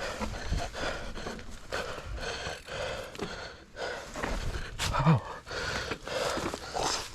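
A mountain biker panting hard, one heavy breath after another about every half-second, catching his breath from the exertion of riding, with one louder, sharper breath about five seconds in.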